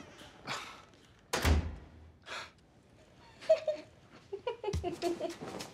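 A room door shutting with a single low thud about a second and a half in, followed by softer rustling and a sharp click.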